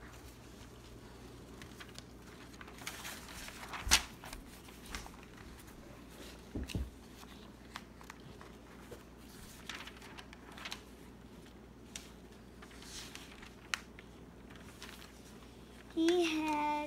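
Sheets of a homemade paper book rustling as they are handled and turned, with scattered soft clicks, a sharp click about four seconds in and a low thump a few seconds later. A child's voice sounds briefly near the end.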